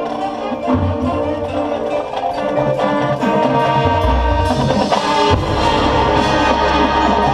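Marching band playing: brass holding chords over drumline strokes and bass drum hits, swelling louder about four seconds in into a long held note.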